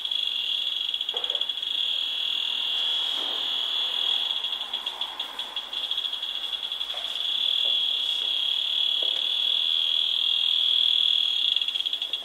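High-pitched buzzing tone from a handheld electrosmog meter's audio output, signalling a low-frequency electromagnetic field as it is held close to electronic devices. The tone dips a few seconds in and grows louder in the second half.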